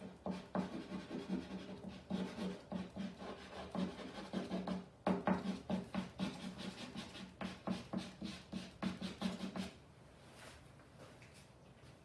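Charcoal stick scratching on canvas in quick back-and-forth hatching strokes, about three or four a second, stopping near the end.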